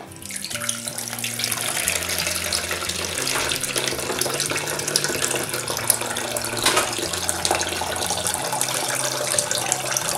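Water pouring out of a glass jar through a perforated lid into a plastic bowl and splashing steadily. The water starts as the jar is tipped and builds to a full stream within the first second or so.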